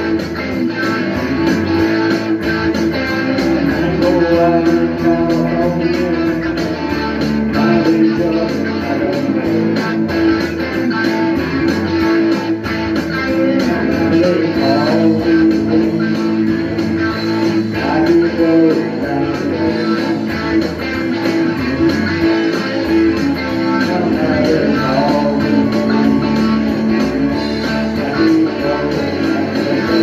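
Guitar playing continuously, sustained notes and chords ringing without a break.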